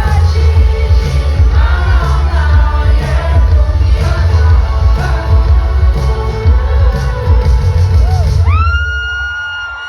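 Live pop concert music played loud through a PA, with heavy bass and singing; about eight and a half seconds in the beat stops and a single high held note rings on as the song ends.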